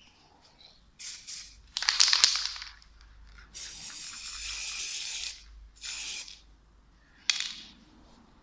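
Aerosol spray paint can spraying in several short hissing bursts, the longest a steady hiss of about a second and a half midway. A loud crackling rustle about two seconds in is the loudest sound.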